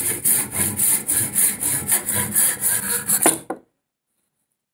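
Hand saw cutting through a round wooden stick, with quick, even rasping strokes, about four a second, that cut off suddenly about three and a half seconds in.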